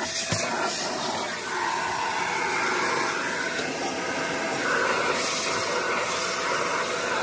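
Vacuum cleaner running, its hose nozzle sucking up dirt and debris from a bare sheet-metal car floor, the tone of the suction shifting as the nozzle moves over metal and plastic. A few sharp clicks near the start.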